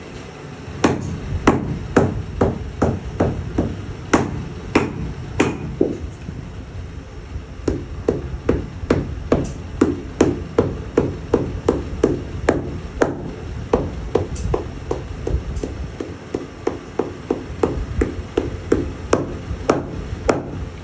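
Cobbler's hammer striking a leather shoe sole over and over, about two sharp blows a second, hammering down the freshly pasted sole. The blows pause briefly about six seconds in, then carry on.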